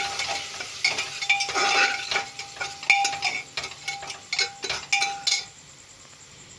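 Slotted spatula scraping and knocking against a metal pressure cooker while stirring a thick onion-spice masala, the pot giving a short ring at many of the knocks. The stirring stops about five and a half seconds in.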